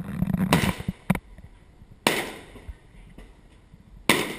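Fireworks bursting: a fast run of bangs and crackle in the first second, then single sharp bangs about two seconds in and again near the end, each dying away.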